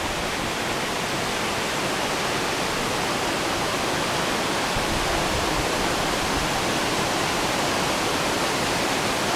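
Small waterfall cascading over rocks in a mountain stream: a steady, even rush of water.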